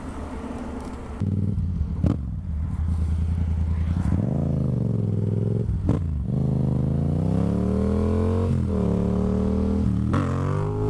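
Yamaha FZ motorcycle engine pulling away and accelerating hard, its pitch climbing through each gear with several quick upshifts.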